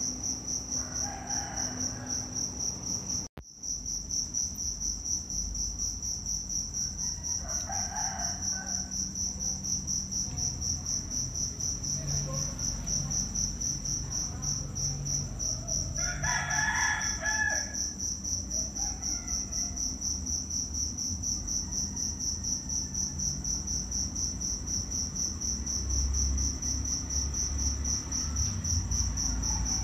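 Steady high-pitched insect drone, cutting out for an instant about three seconds in. Chicken calls rise over it three times, the longest about two-thirds of the way in.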